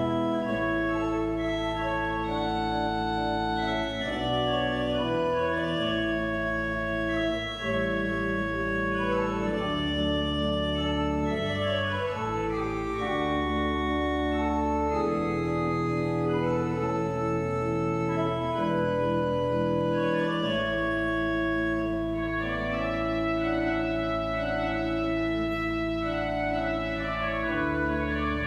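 Pipe organ playing full sustained chords over a deep pedal bass, the harmony moving every second or so.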